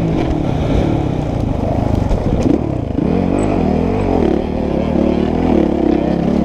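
85cc two-stroke motocross bike engine at full throttle, revs climbing and dropping repeatedly, with a short dip about three seconds in before it winds up again.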